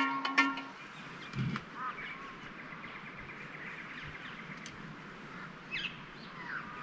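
Scattered short bird calls over a steady outdoor background hiss, after the tail of plucked guitar music ends in the first second.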